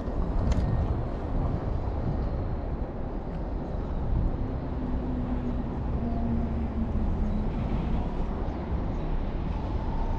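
Steady low outdoor rumble, with a faint wavering hum in the middle and a few light clicks near the start.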